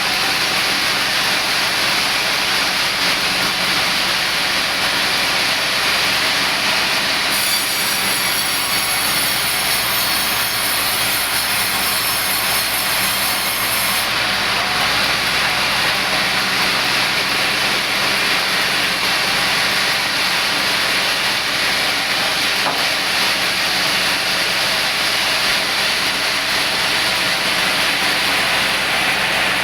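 A powered wood saw running steadily with a continuous harsh noise. It adds a high whine from about 7 s to 14 s, as when the blade is cutting into wood.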